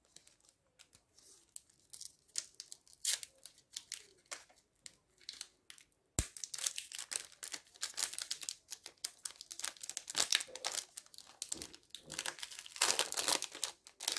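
Trading card pack wrapper crinkled and torn open by hand: sparse crackles at first, then a sharp snap about six seconds in and denser crackling after it.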